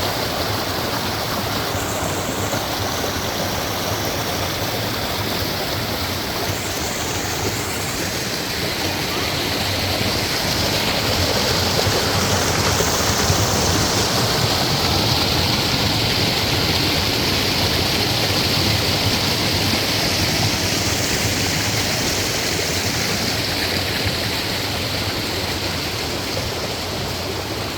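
Steady rushing of flowing water, like a stream, with a higher hiss that swells and fades a few times.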